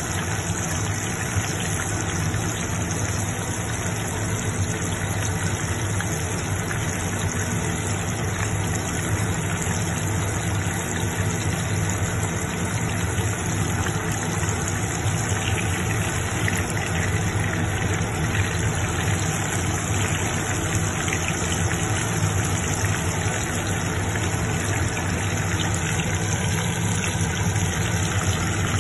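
Breaded pork cutlets shallow-frying in hot oil in a wok, a steady sizzle and bubbling, over a steady low hum.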